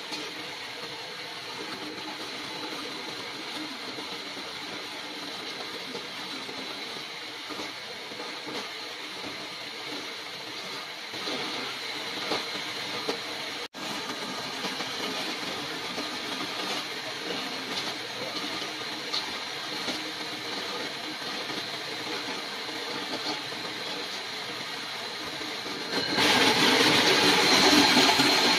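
Electric coconut grater running: its motor-driven spinning steel grater head scrapes the flesh out of a half coconut pressed against it, a steady high whine with a grating hiss. About 26 seconds in it becomes much louder.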